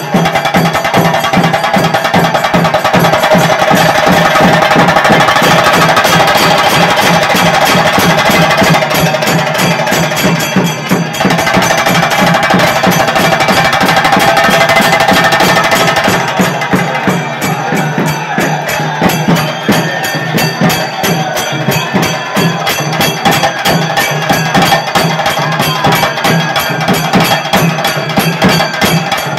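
A troupe of traditional drums beaten with sticks in a fast, loud, unbroken rhythm, with a crowd shouting over it.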